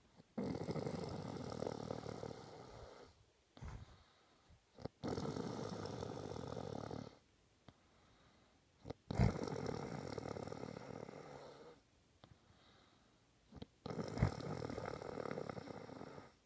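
A person snoring in sleep: four long snoring breaths about four seconds apart, with short sharp snorts at or between some of them.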